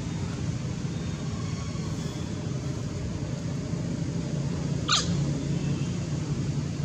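Steady low background rumble, with one short, high-pitched squeak about five seconds in.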